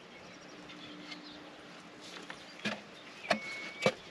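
Three sharp knocks as a new wooden plank is offered up against a wooden boat's hull, with a short steady high tone between the last two.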